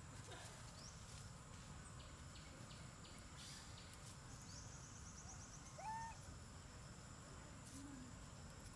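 Faint outdoor ambience: insects give a steady high-pitched drone with a short ticking trill near the middle. About six seconds in, one brief call rises and levels off. Its source, a bird or an animal, is not shown.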